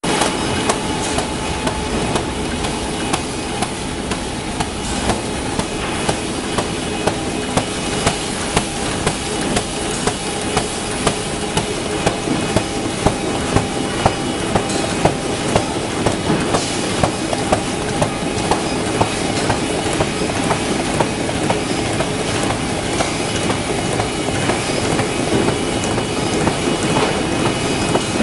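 Folder gluer running: a steady mechanical hum of its belts and rollers, with a regular clack about every half second as corrugated cardboard box blanks are fed through and folded.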